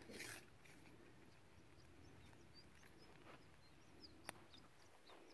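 Near silence with faint, scattered bird chirps, a brief rustle at the start and one sharp click about four seconds in.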